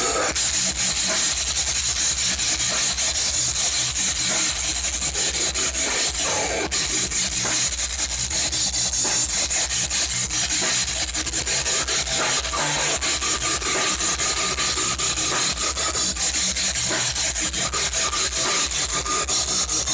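A live metal band playing loud and fast: distorted electric guitars, bass and rapid drumming make a dense, unbroken wall of sound, with a vocalist on the microphone.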